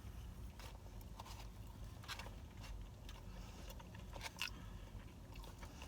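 Faint chewing with scattered soft crunches, a mouthful of crispy fried food being eaten.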